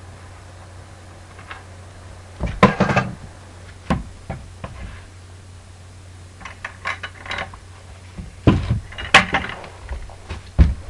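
Irregular knocks and clatters of a paint roller on an extension pole being worked against a paint bucket and the wall, in several clusters, over a steady low hum.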